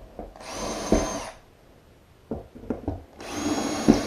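Power drill running in two short bursts of about a second each, one near the start and one near the end, with a steady motor whine through each burst.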